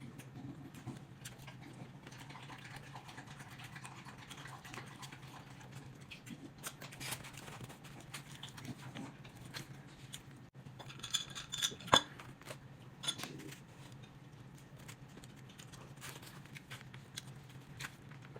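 Close chewing and mouth sounds of someone eating tassot, Haitian fried meat, with many small irregular clicks and a few louder sharp clicks about eleven to thirteen seconds in, over a low steady hum.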